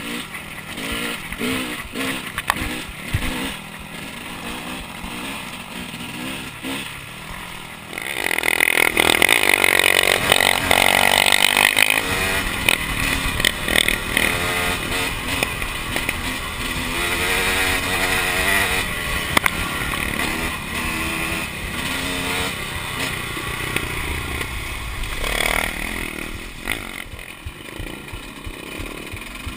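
2011 KTM 300 two-stroke dirt bike engine under way on a trail, revving up and falling back over and over, then held louder at higher revs from about eight seconds in.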